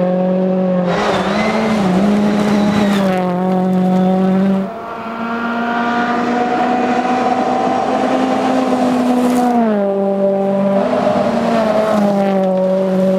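Ford Fiesta rally car engine running hard at high revs. Its pitch steps up and down several times as it changes gear, with a brief lift off the throttle about five seconds in.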